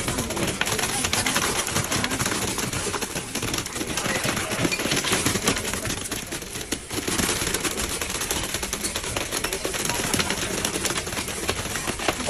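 Wet concrete pouring from a concrete pump hose into stair formwork, the mix splattering and its gravel clattering against the forms and rebar in a dense, steady rattle that eases briefly past the middle.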